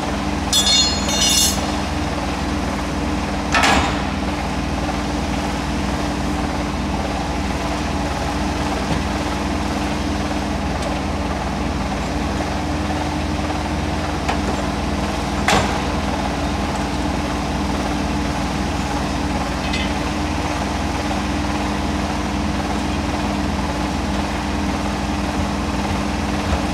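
Guernet Tyrebox truck tyre changer running with a steady mechanical hum while it works a truck tyre onto its rim, with a brief rattle near the start and two sharp metallic knocks, a few seconds in and about halfway.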